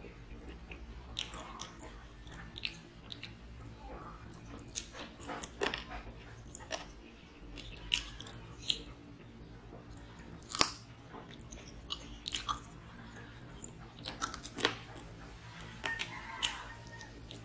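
A person eating chicken curry and rice by hand, chewing and biting with irregular sharp smacks and clicks; the loudest comes about ten and a half seconds in.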